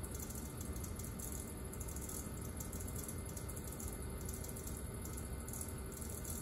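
Wet clay and slip swishing under a potter's hands as he pulls up the wall of a tall cylinder on a spinning pottery wheel, over a steady low hum.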